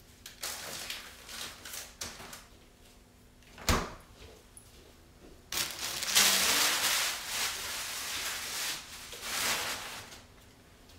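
Groceries being handled and put away: light rustling, then a sharp thump about four seconds in as the refrigerator door shuts. After that come several seconds of loud plastic grocery bags rustling.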